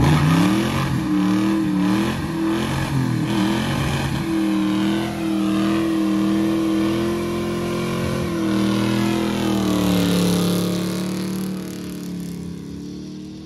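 Classic muscle car doing a burnout: the engine is revved hard and held at high revs while the rear tyres spin, its pitch wavering at first and then holding steady. About ten seconds in the revs drop and the sound fades.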